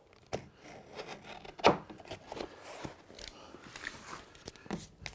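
Trimming knife cutting flooring underlay along the skirting board, with scattered rustles, scrapes and light clicks as the sheet is handled and lifted. A sharper knock about a second and a half in is the loudest sound.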